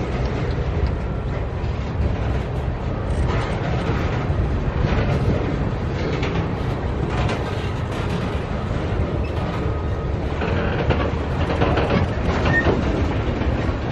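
Freight train cars rolling past: a steady low rumble with scattered clacks of steel wheels over the rail joints.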